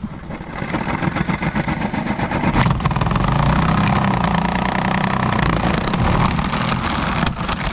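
Electric drill with a hole saw boring through a house wall from the inside, first the pilot bit and then the saw cutting out through the vinyl siding. The drill runs steadily and stops near the end.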